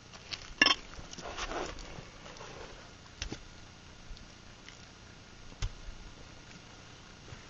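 Work boots stepping and scuffing on the muddy floor of a foundation trench, with a sharp click about half a second in, a short scraping shuffle after it, and two dull knocks later.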